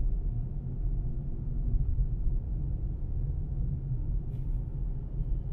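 Steady low rumble of a car driving at road speed: tyre and engine noise.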